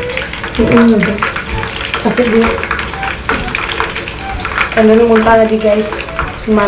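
Chicken wings frying in a pan of hot oil, crackling and sizzling steadily. Over it, a low pitched hum like a voice comes and goes a few times, loudest about five seconds in.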